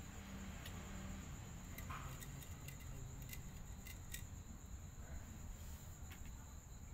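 Quiet background with a steady high-pitched insect drone, like crickets, over a low hum, with scattered faint clicks.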